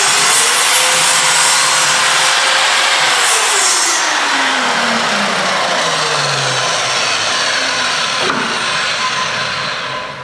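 A Parkside PZKS 2000 B2 sliding compound mitre saw, with a 2000 W motor and a 24-tooth blade, is running and cutting through a piece of wood. Its whine holds steady, then drops in pitch from about three seconds in, and the sound eases off near the end.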